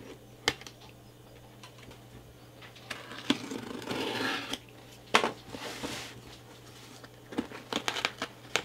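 A blade slicing and scraping along packing tape on a cardboard box, with scattered taps and clicks against the cardboard. Near the end comes a quick flurry of crackles and clicks as the taped flaps are pulled open.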